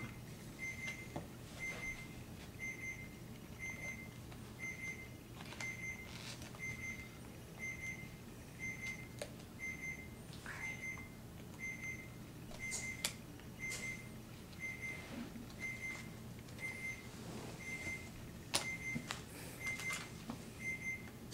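An electronic beep at one high pitch, repeating evenly a little faster than once a second, over a steady low hum. A few light clicks and taps of cardboard jigsaw pieces being placed on the carpet are heard in between.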